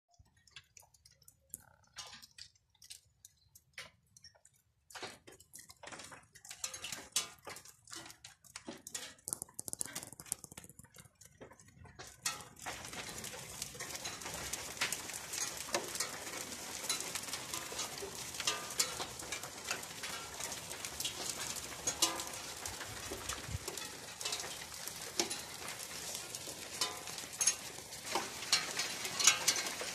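Rain on a stone courtyard and its tiled roofs. At first it is scattered drops striking hard surfaces; about twelve seconds in it becomes a steady downpour with many sharp drip hits through it.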